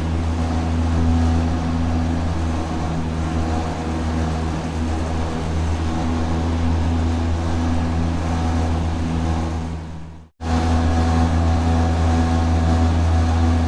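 Industrial factory machinery running: a steady, loud rotating-machine drone with a deep hum and several steady tones above it. About ten seconds in it fades out to silence for a moment, then cuts straight back in at full level.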